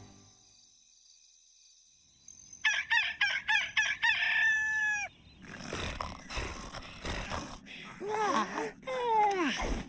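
Cartoon sound effects: after a near-silent pause, a quick run of short clucking calls ending in a longer falling note. Then a noisy scuffle with squeaky, gliding vocal sounds.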